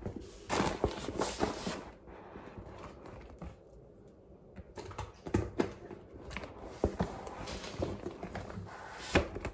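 Bags being handled and repacked: a dense rustle of cloth and a nylon tote early on, then scattered light clicks and knocks as items and handles are moved.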